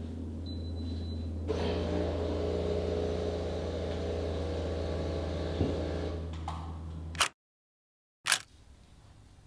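Home espresso machine running with a steady low hum, joined about a second and a half in by a louder steady hiss and whir that runs for several seconds. The sound cuts off abruptly near the end, followed by a click and then faint room tone.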